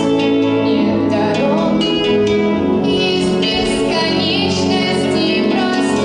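A girl singing through a handheld microphone over instrumental backing music.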